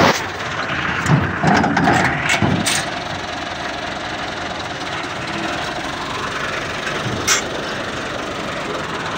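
Massey Ferguson 375 tractor's diesel engine running steadily, with a few sharp knocks in the first three seconds and one more about seven seconds in.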